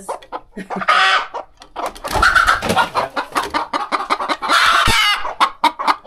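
Hens squawking and clucking loudly at close range: a call about a second in, two longer loud squawks in the middle, then a run of quick clucks near the end.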